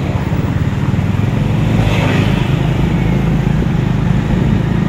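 Motorcycle taxi's engine running steadily under way, a continuous low rumble mixed with road and wind noise.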